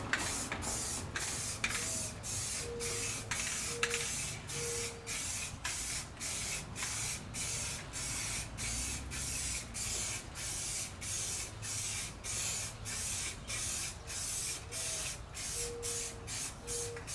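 Wash primer being sprayed onto a sanded fiberglass and Bondo hull repair, hissing in short repeated bursts of about two to three a second.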